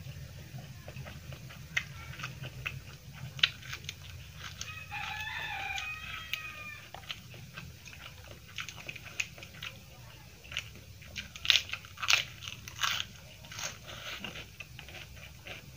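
Close-miked eating: wet chewing and mouth clicks throughout, with a cluster of louder crunchy bites a little past two thirds of the way in. A rooster crows in the background for about two seconds, about a third of the way in, over a steady low hum.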